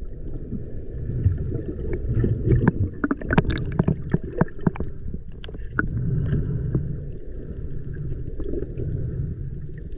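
Underwater ambience picked up by a camera in its housing: a dense low rumble of water with scattered sharp clicks and crackles.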